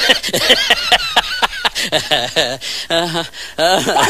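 People's voices speaking and exclaiming in quick, animated bursts.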